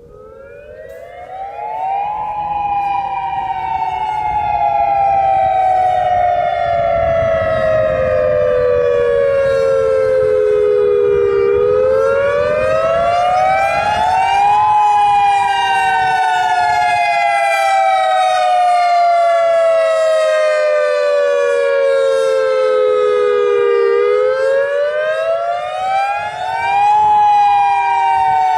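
Federal Signal EOWS 612 electronic outdoor warning siren sounding its wail signal. It comes in loud about a second in and then cycles: a tone sweeping up over about three seconds and sliding back down over about nine, two and a half times.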